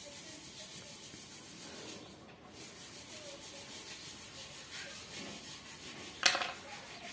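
Faint rubbing and handling of materials on a work surface, with one sharp knock about six seconds in.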